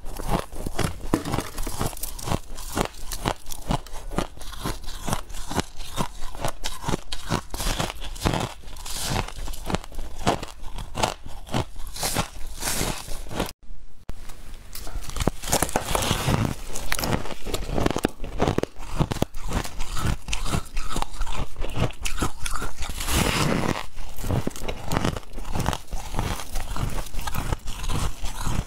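Freezer frost being bitten and chewed: dense, rapid crunching, broken by a brief dropout about halfway through.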